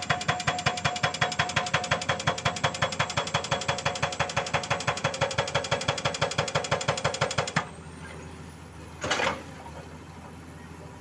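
Excavator's hydraulic rock breaker hammering rock at about five blows a second, stopping suddenly about seven and a half seconds in. The excavator's engine then runs on steadily, with a short hiss about a second and a half after the hammering stops.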